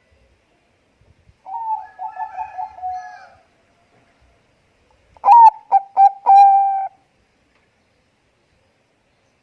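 Zebra dove (perkutut bangkok) cooing in two phrases: first a quick run of rolling coos, then, a couple of seconds later, a louder phrase of a few short notes that ends in a held coo.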